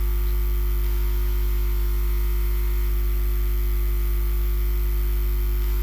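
Steady electrical mains hum: a low drone with a stack of evenly spaced higher tones, unchanging throughout.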